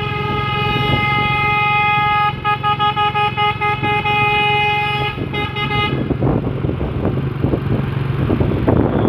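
Container truck's Basuri 'telolet' air horn sounding in a held blast, then in quick stuttering pulses, cutting off about six seconds in. After that the truck's engine and road noise carry on.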